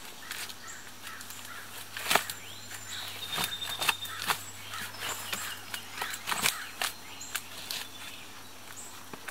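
Dry dead bark and sticks crackling and snapping as they are handled and pushed into a gap at the base of a tarp shelter: a string of sharp, irregular cracks and crunches in leaf litter, the loudest about two seconds in. A few faint, short bird calls sound in the background.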